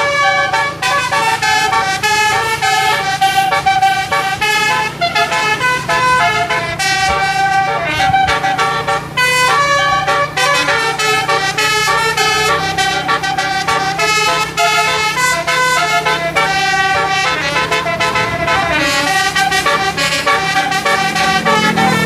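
A bus's 12-note 'telolet' basuri air horn playing a fast melody of many short notes, over the steady hum of the bus's engine.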